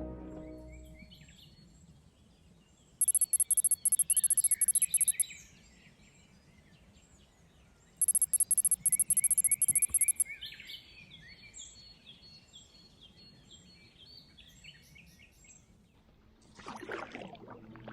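Birds chirping and singing, with two loud bursts of a very high, fast-pulsing trill, each about two seconds long, about three and eight seconds in.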